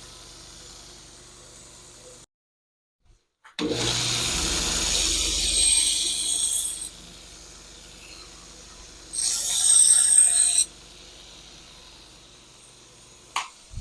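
Power sander or grinder grinding the steel knife blank to shape: two loud, harsh grinding passes, the first about three seconds and the second about a second and a half, with the motor running quietly between them. About two seconds in, the sound drops out completely for about a second.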